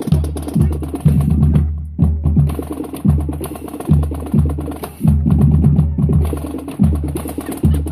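High school marching band drumline playing a marching cadence: deep bass drum hits about once a second under quick, sharp snare strokes.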